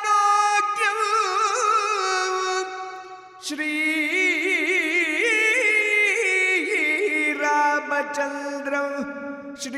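South Indian devotional song: a voice sings long, drawn-out notes with quick wavering ornaments, pausing briefly about three seconds in before carrying on a step lower.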